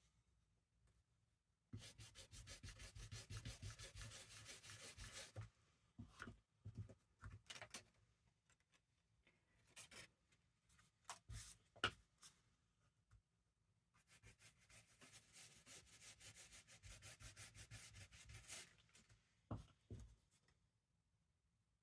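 Faint, brisk rubbing strokes on paper in two runs of several seconds each, with light taps and paper handling in between.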